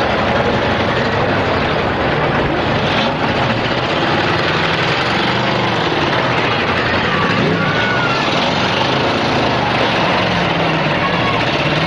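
Engines of several demolition derby cars running and revving together in a loud, continuous din, their pitches rising and falling as the cars drive and ram one another.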